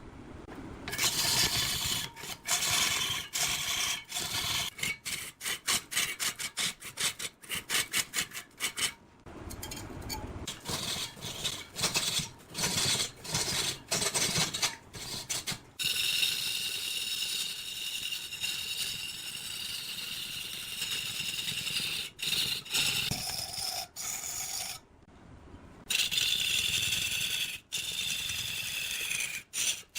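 Wood being worked by hand: rapid repeated scraping or rasping strokes. About halfway through this gives way to a steadier whirring with high tones, like a power tool cutting or sanding wood.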